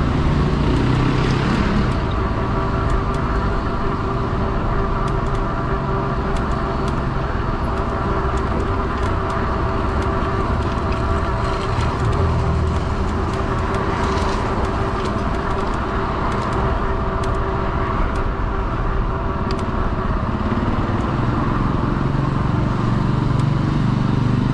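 Fat-tire e-bike in motion: a steady hum from the drive and tyres on the road, with wind rumbling on the microphone.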